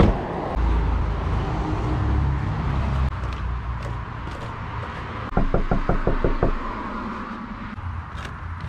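A quick run of about eight knocks on a house's front door, a little past the middle, over a low rumble of wind or passing traffic.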